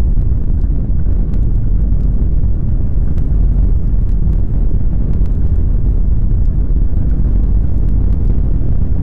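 Simulated earthquake shaking: a loud, steady, deep rumble with faint scattered crackles on top.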